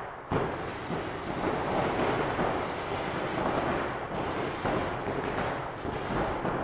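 Rapid paintball marker fire from several players, the shots and paintball hits running together into a dense, continuous rattle.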